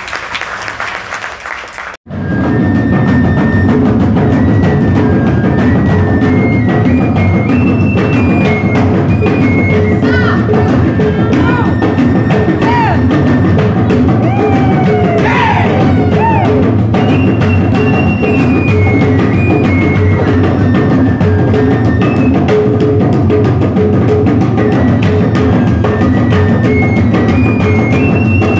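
Traditional Moluccan ensemble of tifa hand drums with gong and suling bamboo flute: the drums keep a fast, dense rhythm while the flute plays a high melody moving up and down in steps. The music starts abruptly about two seconds in, cutting in after applause.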